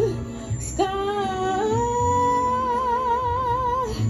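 A woman singing live into a microphone with accompaniment: after a brief phrase she holds one long note for about three seconds, its pitch wavering in vibrato toward the end, over a steady bass pulse.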